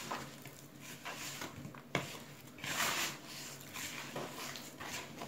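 Hand squeezing and rubbing soft butter, sugar and ground-almond dough against a plastic mixing bowl, in a few soft swishing strokes, with one sharp click about two seconds in.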